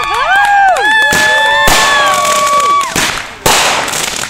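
Consumer aerial fireworks going off: sharp bangs about one and a half and three and a half seconds in, each followed by crackling. Over them, several people let out long, rising-and-falling "ooh" sounds.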